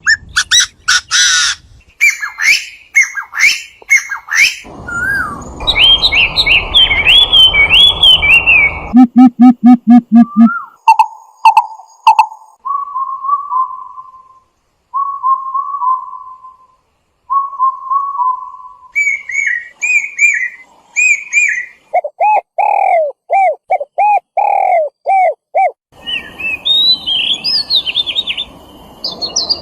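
Calls and songs of several different bird species, cut one after another every few seconds: fast high chirps, warbled whistled phrases, a rapid run of low notes, repeated short whistles, and a series of falling notes.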